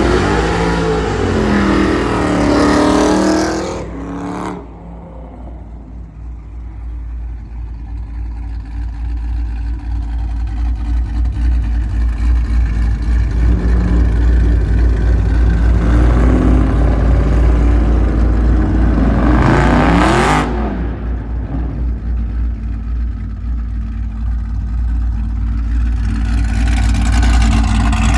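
Loud V8 car exhaust revving hard, the pitch sweeping up and down near the start and again about twenty seconds in, over a constant deep exhaust rumble.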